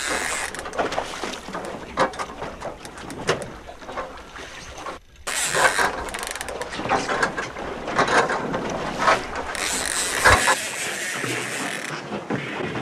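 Fishing reel clicking and ratcheting as a halibut is pumped up and line is wound in, over wind rushing on the microphone.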